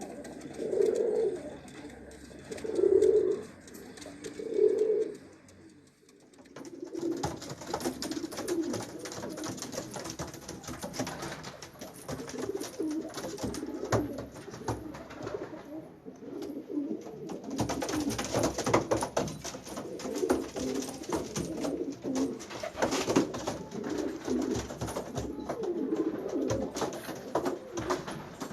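Domestic pigeons cooing: three separate coos in the first five seconds, then after a short break many pigeons cooing together continuously, with frequent light clicks and rustles among them.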